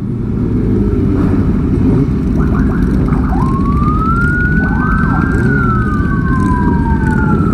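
A siren wailing: a few short chirps, then from about three seconds in two overlapping tones that rise slowly and sink back down. Under it runs the steady low rumble of the group's Kawasaki ZX25R motorcycles and wind.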